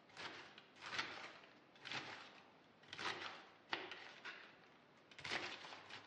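Kitchen knife slicing through a head of green cabbage on a cutting board, shredding it in short strokes about once a second, with a brief pause about four seconds in.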